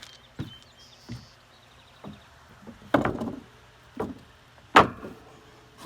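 A string of knocks and clunks from work on the deck build: a few soft thumps, then a short rattling clatter about three seconds in, and two sharp knocks, the louder one just before the end.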